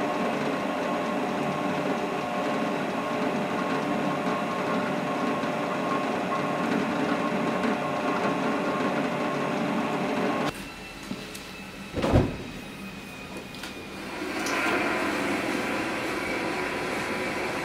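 Bench drill press motor running steadily while a bit drills into a small block clamped in a vise; the sound cuts off suddenly about ten seconds in. After a short lull comes one loud low thump, and a couple of seconds later a steady hiss of gas burners sets in as the forge fires.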